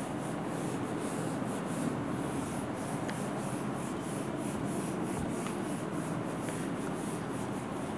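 Hand-held whiteboard eraser rubbed across a whiteboard in rapid, repeated back-and-forth strokes, wiping off marker writing.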